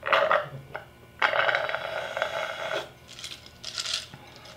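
Ice rattling and scraping in a plastic cup of Thai iced tea as it is tipped up to drink and then shaken, in several bursts, the longest lasting about a second and a half.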